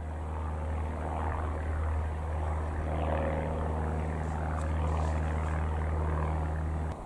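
Steady low engine drone with a rushing, wavering noise over it, which stops suddenly near the end.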